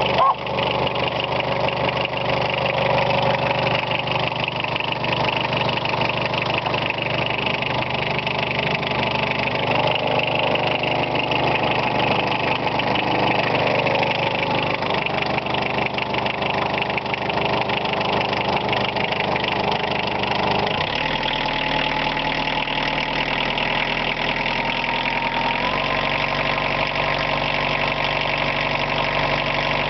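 1978 VW Golf Mk1's 1.5-litre four-cylinder diesel idling steadily just after a cold start. Its engine speed shifts to a new steady pitch about two-thirds of the way through, and again a few seconds later.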